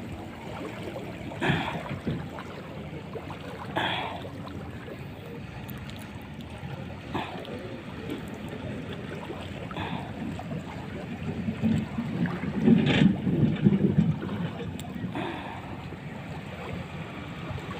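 Seaside ambience of wind and moving water, with a few scattered knocks and handling sounds. Wind buffets the microphone harder with a low rumble about two-thirds of the way through.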